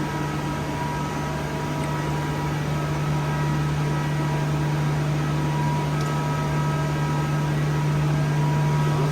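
Steady low machine hum, with faint high whining tones that fade in and out and a faint tick about six seconds in.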